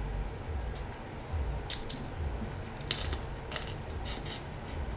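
Snow crab leg shells being cracked and picked apart by hand and the meat eaten: a scattering of short, sharp cracks and clicks, some in quick pairs, over a low steady hum.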